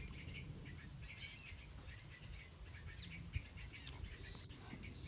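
Faint bird chirps scattered over a low, steady background rumble, with a single soft thump about three and a half seconds in.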